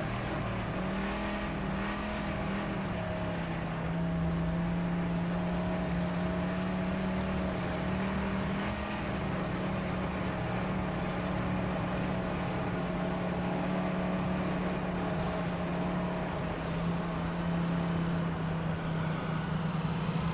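Motorcycle engine running steadily as the bike is ridden, a constant drone that shifts only slightly in pitch.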